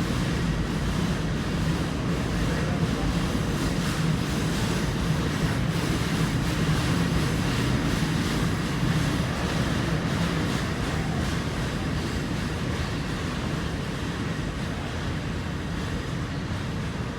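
SEPTA work train passing through the station: a steady low engine hum over rolling wheel noise on the rails, slowly fading toward the end as the train moves away.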